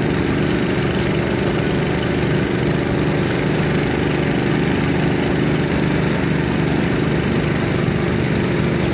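An engine running steadily at one constant speed, with a steady hiss of water spraying from a fire hose.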